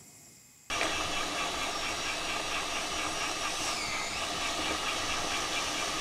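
Electric meat grinder running steadily under load, mincing raw fish fillet, with a steady motor whine and grinding noise. It sets in abruptly under a second in.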